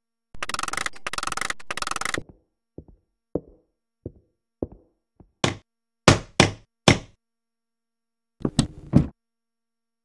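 Hammer strikes on a large nail being driven into a wall: a few light taps, then four louder blows between about five and seven seconds in, and a quick cluster of knocks near the end. It opens with a rough scraping noise lasting about two seconds.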